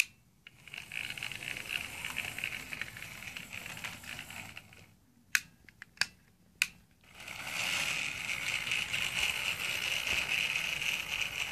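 Bachmann model train locomotive's electric motor and gears whirring as it runs along the track. Midway the whir drops away for about two seconds while a few sharp clicks sound as the wheels pass over a track crossing, then the whir comes back louder.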